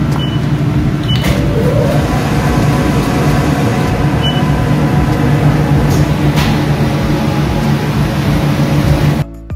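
Loud steady hum of commercial kitchen machinery, with three short high beeps from a convection oven's control panel as its temperature and timer dials are set. A whir rises in pitch about a second and a half in.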